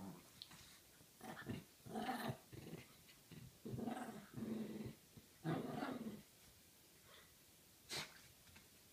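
Small dogs play-growling as they wrestle, in several growling bursts over the first six seconds. A single sharp click comes near the end.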